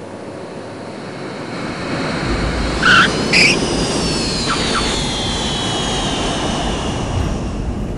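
Jet airliner landing: a rising rumble, then two short tyre squeals about half a second apart at touchdown, followed by a high engine whine falling in pitch.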